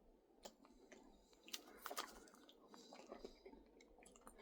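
Faint chewing of a cheese-topped cracker pizza, with scattered small mouth clicks and smacks.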